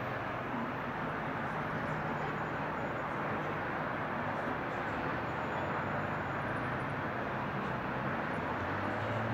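Steady outdoor background noise: an even rumble and hiss with a faint low hum underneath and no distinct events.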